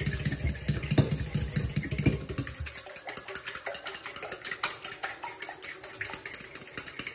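A fork whisking beaten eggs in a stainless steel mixing bowl: rapid, irregular clinks and scrapes of the tines against the metal. A low rumble underneath stops about three seconds in.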